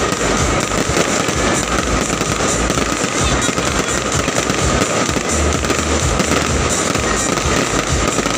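Fireworks display: a dense, continuous barrage of bursts and crackling that keeps an even loudness throughout, with music playing underneath.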